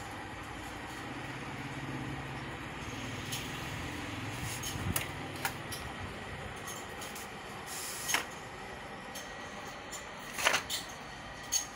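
Canon LBP6300dn laser printer running, with a low mechanical hum through the first half, then several short sharp clicks and knocks.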